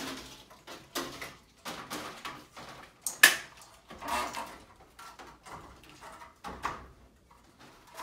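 Sheet-metal shelves scraping and clanking against the metal frame of a snake breeding rack as they are fitted: an irregular run of scrapes and knocks, the loudest a sharp knock about three seconds in.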